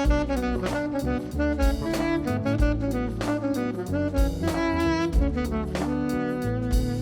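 Instrumental jazz background music: a horn melody over a walking bass line and drums.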